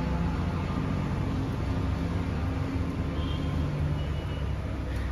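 Steady low rumbling hum of kitchen background noise, even throughout.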